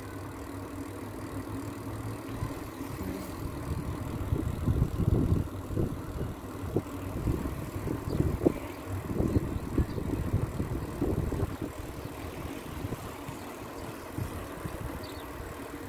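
Riding a bicycle on an asphalt path: a low, uneven rumble of tyres and wind buffeting the microphone, swelling and fading in gusts.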